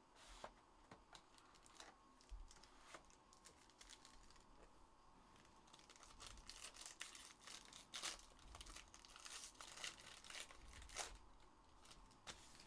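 Faint crinkling and tearing of a foil trading-card pack (Panini Plates & Patches football) being ripped open by hand, with small clicks and rustles of the cardboard box before it. The crinkling grows thicker past the middle.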